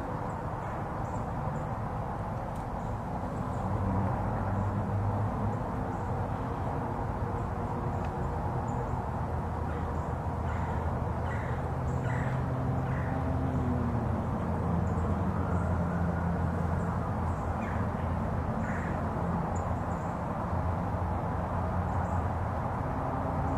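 Outdoor woodland ambience: a steady low rumble with faint bird calls, including a short run of calls about halfway through.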